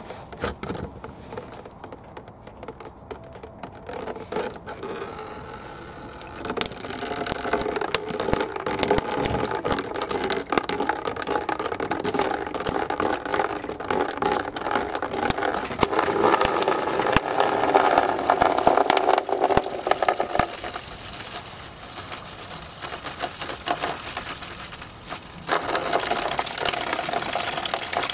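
Coolant draining from a garden tractor's opened radiator drain cock and splashing and pattering below. The splash becomes louder and steadier near the end as the stream thickens.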